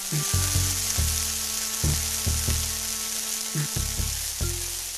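Masala frying in hot oil in a wok over a gas flame, a loud hiss of sizzling that starts suddenly as the pan flares up.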